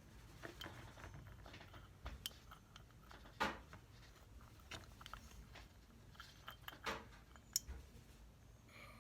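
Scattered light metallic clicks and clinks of a wrench and small carburetor parts being handled, with a sharper tap about three and a half seconds in and a couple more near the end.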